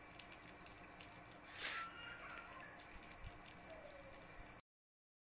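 Steady high-pitched insect trill that cuts off abruptly about four and a half seconds in.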